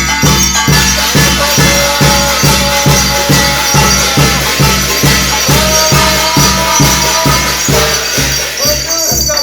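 Korean shaman ritual (gut) music: a steady drum beat of roughly two to three strokes a second, with jangling metal percussion and a sliding, wavering melody above it.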